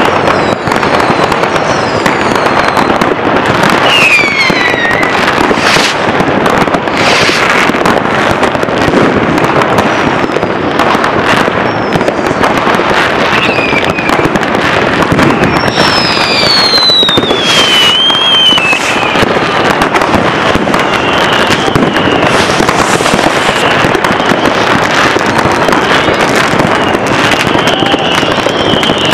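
Fireworks and firecrackers going off in an unbroken barrage of bangs and crackling, with whistles falling in pitch several times, the clearest about four seconds in and a long one around the middle.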